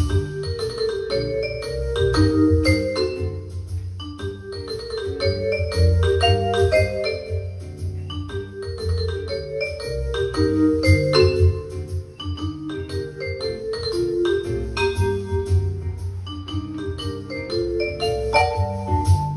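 Electronic arranger keyboard playing a swing piece: a melody of short struck notes over a steady bass line and beat.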